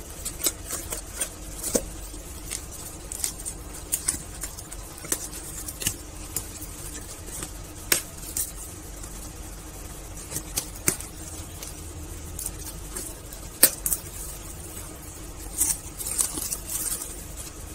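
Scissors cutting through packing tape on a cardboard box and the box being handled open: scattered sharp clicks, snips and scrapes of the metal blades and cardboard, irregularly spaced.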